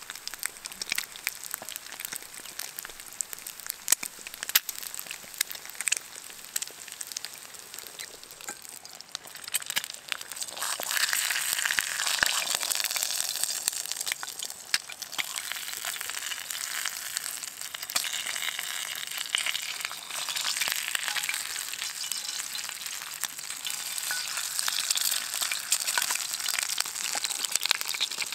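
Eggs frying in a pan over an open wood fire, with scattered crackles and pops. About ten seconds in the sizzling turns much louder and stays at a steady hiss.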